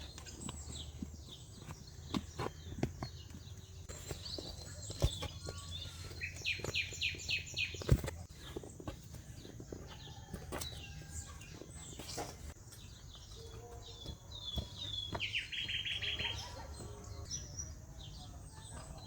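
Small birds chirping, with two quick trills of rapidly repeated notes, one about six seconds in and a lower one about fifteen seconds in. Scattered sharp knocks and clicks mix in, the loudest about eight seconds in.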